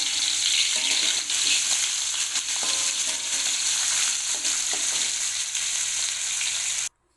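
Iwak pe (smoked fish) frying in hot oil in a pan, with a steady sizzle. It cuts off suddenly near the end.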